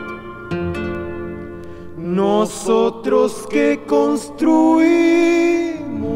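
Andean folk song recording: plucked guitar and string notes, then from about two seconds in a voice sings a short phrase that ends in a long held note with vibrato, over the strings.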